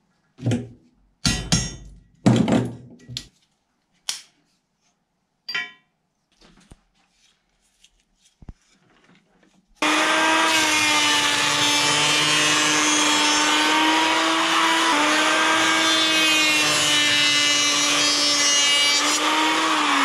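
A handful of sharp metallic knocks and clinks as a pocket knife is worked on a steel block. From about ten seconds in, an electric hand planer runs steadily, shaving a strip of mirabelle plum wood, and stops right at the end.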